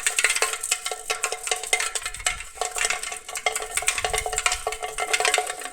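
A piece of chalk rattling inside a shaken box, a rapid, continuous clatter of small knocks.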